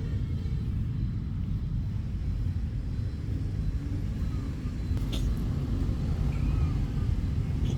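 A steady low rumble, with a sharp click about five seconds in and a few faint, short high cries.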